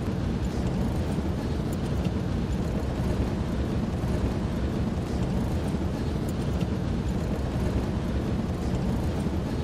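Vehicle driving over desert ground: a steady, unbroken rumble of engine and road noise, heaviest in the low end.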